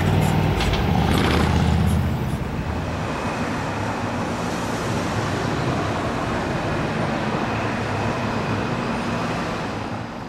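CSX GP40-2 diesel locomotive's engine running as it passes, a loud low rumble with a few light clicks. About two seconds in this gives way to a steady hiss of road traffic, which fades out at the end.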